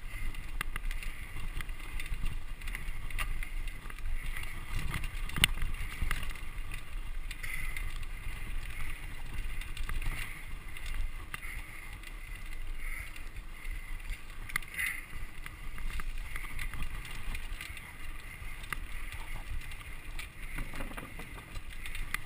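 Mountain bike ridden over a dirt singletrack trail: a steady low rumble of tyres and wind on the microphone, with frequent clicks and rattles from the bike over bumps.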